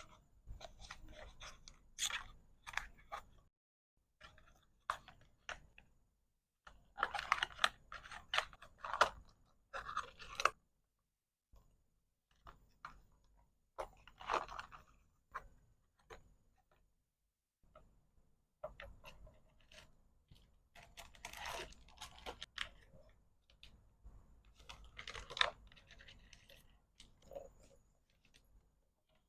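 Hands packaging small resin accessories: plastic packaging crinkling and rustling, mixed with light clicks and taps of the pieces, in irregular bursts with short pauses.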